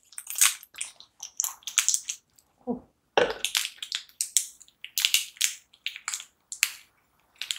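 Crinkly plastic snack wrapper of a French apple pie crackling in irregular bursts as it is torn open and the pie is pulled out.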